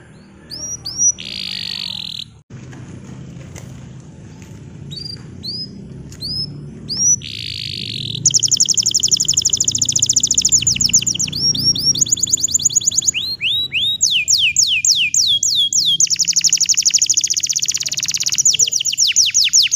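Green canary singing: scattered sharp chirps and two harsh buzzy notes in the first half, then long, very fast high trills from about eight seconds on, switching between several trill types.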